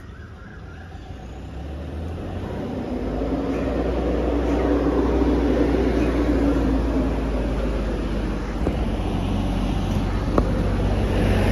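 Engine rumble of a large road vehicle close by, growing louder over the first few seconds and then holding steady.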